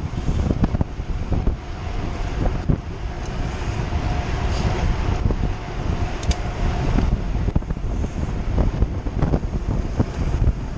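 Wind rushing over the microphone of a mountain bike ridden fast on a paved road, with tyre rumble and scattered clicks and knocks from the bike.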